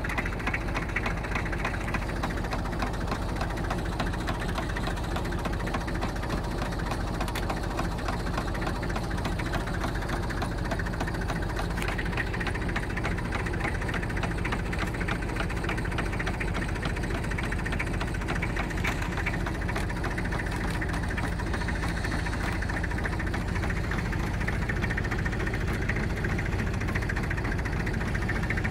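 Tractor engine running steadily at a constant speed, driving a homemade wire-rope winch through a PTO cardan shaft.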